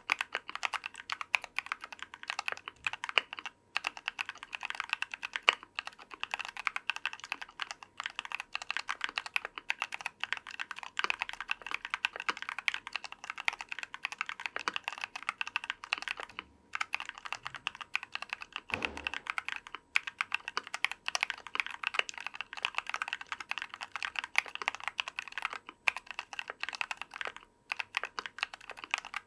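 Continuous typing on a Tofu60 60% mechanical keyboard with stock factory-lubed TECSEE Ice Grape 63.5g linear switches, a brass plate, foam and silicone case dampening, and PBT Cherry-profile keycaps. A rapid, even stream of keystrokes breaks off for a moment a few times.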